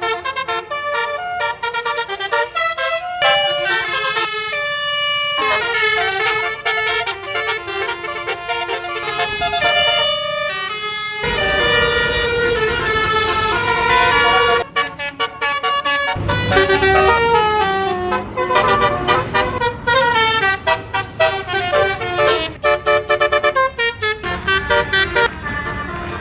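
Bus 'telolet basuri' multi-tone air horns playing a fast melody of stepping notes, with a short break or two. A deep engine rumble joins underneath about eleven seconds in and grows stronger a few seconds later.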